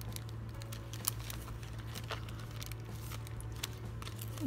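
Paper and cardstock tags of a handmade tag flip book rustling and crinkling as they are handled and turned, with scattered light clicks.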